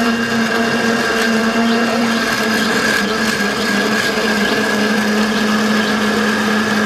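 Electric blender running at full speed, blending cải rổ greens with coconut water: a loud, steady motor hum at a constant pitch with a whirring, hissy wash over it.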